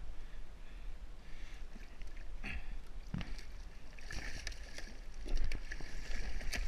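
Water splashing and sloshing against a kayak as a hooked blue shark is unhooked and released at the side, with a few knocks; the splashing grows heavier about four seconds in.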